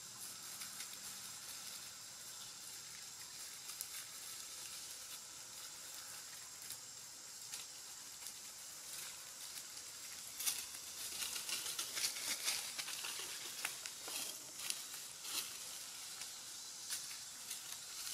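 Dry leaf litter rustling and crackling under scrambling macaques over a faint steady hiss, the crackles busier from about ten seconds in.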